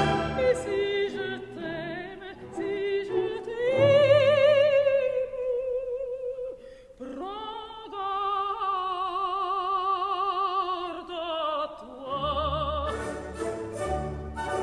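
Operatic singing over an orchestra: one voice with strong vibrato holds long high notes through the middle. Near the start and again near the end, a run of sharp rhythmic clicks sounds over the music.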